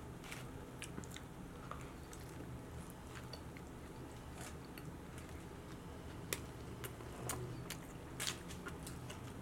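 A man quietly chewing food with his mouth closed: faint, scattered wet clicks of chewing, a few louder ones in the second half, over a low steady room hum.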